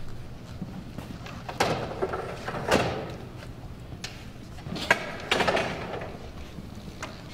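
Metal folding chairs knocking and scraping as several people scramble around them, with several sharp knocks scattered through.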